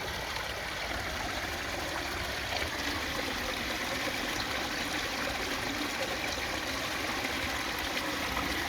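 Garden koi pond waterfall: water running steadily over the rockery into the pond.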